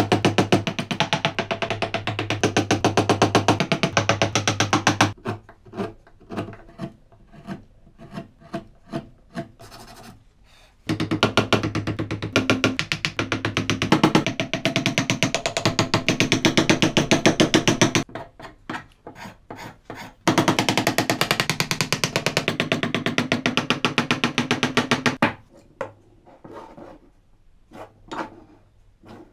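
Hand carving tools scraping and rasping wood in quick repeated strokes, in three long stretches with short gaps of scattered taps and clicks between them.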